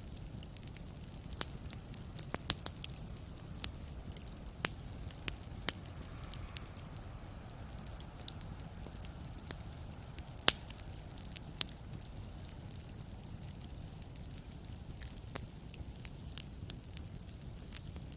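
Wood fire burning in a fireplace: a steady low rumble with irregular sharp crackles and pops, the loudest pop about ten seconds in.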